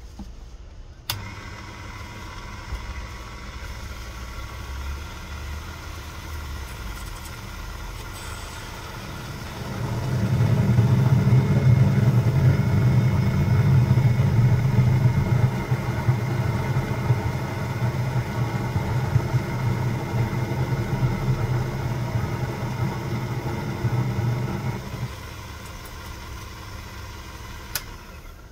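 Proxxon mini lathe running with a parting tool cutting into a spinning 304 stainless steel bar: a steady machine hum that starts with a click about a second in. About ten seconds in, a much louder low drone sets in, lasts about fifteen seconds, then drops back.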